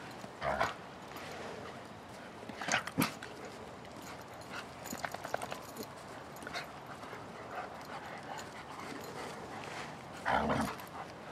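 Two dogs play-fighting, giving short yips and barks a few times, the loudest near the end.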